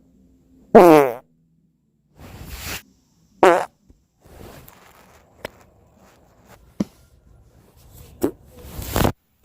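A series of farts. Two short, loud, pitched ones come about a second in and about three and a half seconds in, with softer airy ones between them and a longer hissing one near the end. A few small clicks fall in the gaps.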